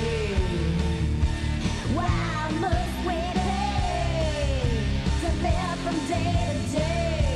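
Rock song playing, with a sung vocal line gliding over bass and drums.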